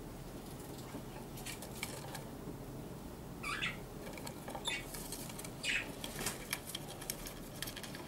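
A budgerigar shifting about inside a wooden nest box: light, irregular scratches and scuffs of its feet on the wooden floor and shavings, with a few slightly louder short scrapes in the middle.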